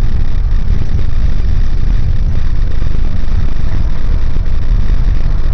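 Steady low rumble of a vehicle driving along a road, its engine and road noise heard from on board.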